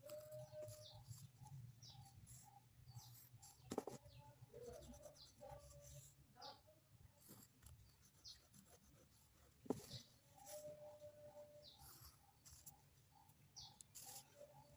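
Near silence, with faint pencil strokes on paper along a ruler. There are two sharp clicks, about four and ten seconds in, and faint short high chirps now and then.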